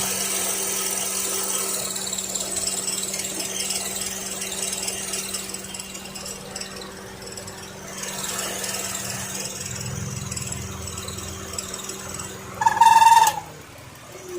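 Car engine running steadily with a constant low hum and no squeal to be heard, the squeak having been fixed. About thirteen seconds in, a short loud high tone sounds and the hum stops.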